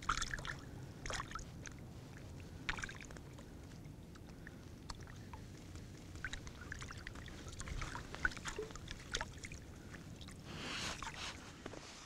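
Faint water sloshing and splashing, with scattered light knocks and clicks and a brief swell of noise near the end.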